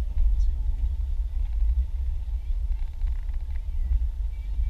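Car interior rumble: the engine and road noise run as a steady low rumble, heard inside the cabin through a dashboard-mounted camera.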